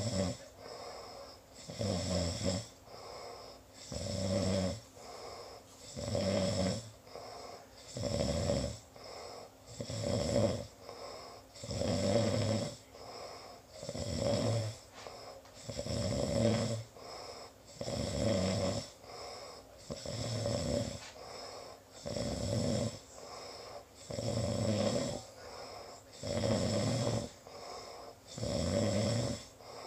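Deep, steady snoring from a sleeper: a loud rasping snore about every two seconds, each followed by a softer breath out, some fifteen snores in a row.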